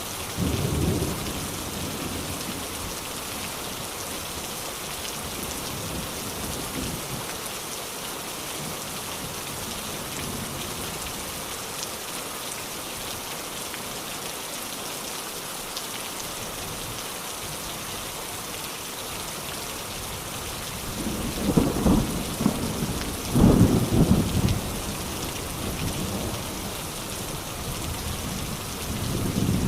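Steady heavy rain hissing, with rolls of thunder: a short low rumble just after the start, a louder rumble with several peaks about two-thirds of the way through, and another starting near the end.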